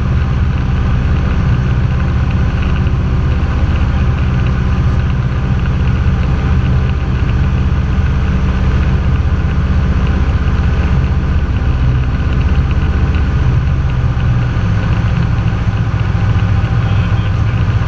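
Cessna 172's piston engine and propeller running steadily in flight, heard from inside the cabin as an even drone.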